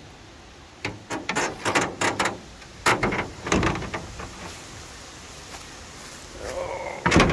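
The rusty sheet-metal hood side panel of a 1962 REO truck being swung down and shut: a run of metal clanks and knocks, the loudest bangs about three seconds in, with another sharp knock near the end.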